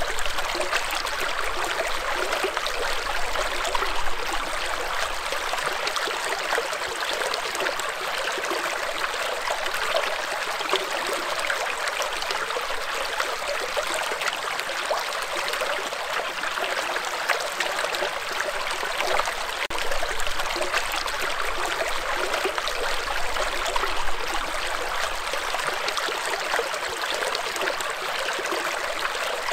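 Shallow rocky stream running over and between boulders in a small riffle: a steady, even rush of water with fine splashing.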